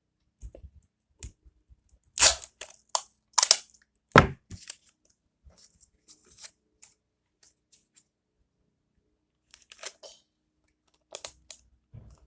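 Paper and tape being handled during craft work: a few short, sharp rips and clicks, the loudest about two to four seconds in, then a quieter stretch with a few more near the end.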